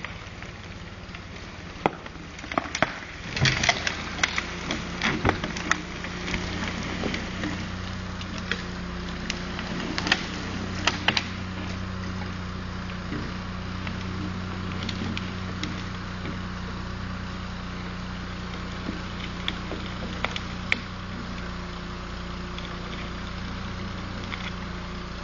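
Wyssen cable crane running with a steady low engine hum while logs are hauled up through the brush, with sharp cracks of snapping wood and branches. The cracks come in a cluster from about two to six seconds in, again around ten to eleven seconds, and a few more later.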